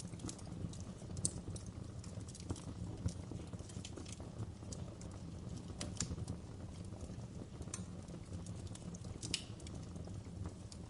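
Fire crackling, with irregular sharp pops over a steady low rumble.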